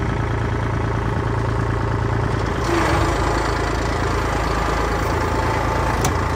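Compact tractor engine idling steadily, with extra higher-pitched noise joining a little before halfway and a short click near the end.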